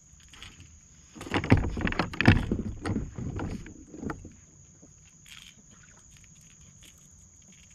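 Knocks and rattles against the plastic hull of a Hobie Compass fishing kayak while a small speckled trout is handled and unhooked from a lure. The knocks come in a cluster, loudest from about one and a half to two and a half seconds in, then fade to faint ticks.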